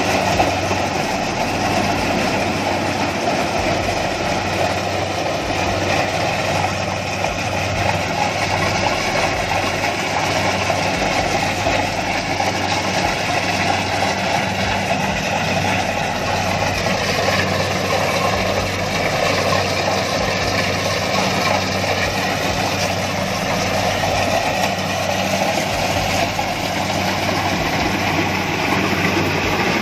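Rice combine harvester's diesel engine and threshing machinery running steadily while it cuts standing rice, a continuous mechanical drone.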